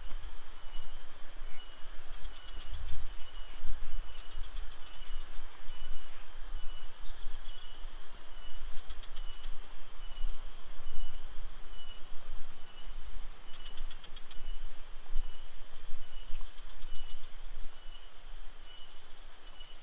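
A steady chorus of insects trilling and buzzing in several high, even bands, pulsing regularly, over a broad hiss and uneven low rumbling on the microphone.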